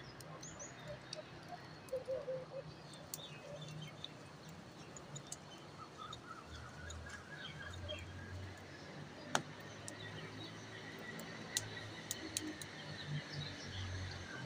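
Faint outdoor ambience with birds chirping here and there, and a few sharp clicks, the loudest about halfway through.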